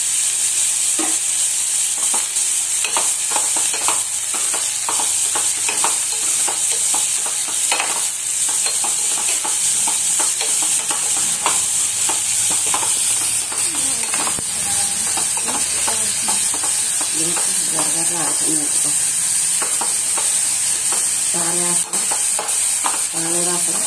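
Chopped onions, curry leaves and tomato sizzling in hot oil in a metal pot, with a steady hiss, while a metal spoon stirs them and clicks and scrapes against the pot.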